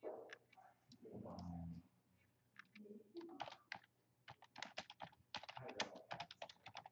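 Typing on a computer keyboard: quick, irregular keystroke clicks that come thickest in the second half.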